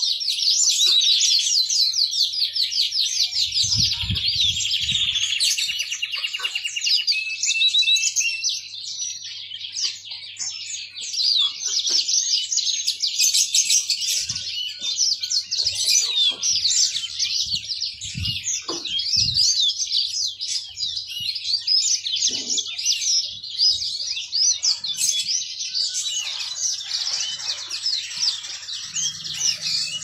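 Yellow-fronted canary (mozambik) singing without a break: a fast, jumbled warble of high chirps and trills, with a quick rattling trill in the first few seconds.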